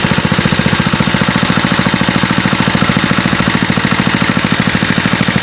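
An engine running steadily with a fast, even knocking beat, about ten beats a second.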